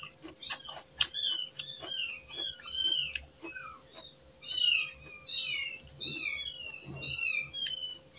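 A cat, likely a kitten, mewing over and over in short, high, falling mews, about two a second.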